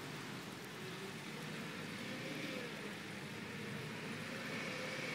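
Engines of off-road 4x4s driving along a forest track, the engine note rising and falling as the drivers work the throttle.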